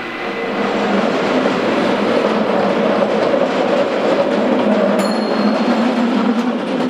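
San Francisco cable car running along its rails past the listener, a steady rattling rumble of wheels and running gear that grows louder in the first second as it draws near. A short, high metallic ring sounds about five seconds in.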